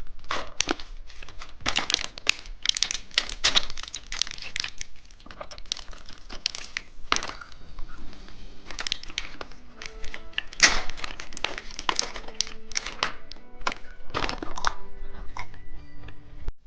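Plastic candy packaging being handled and opened: rapid crinkling, tearing and clicking of wrappers and capsules. Faint music plays underneath from about halfway through.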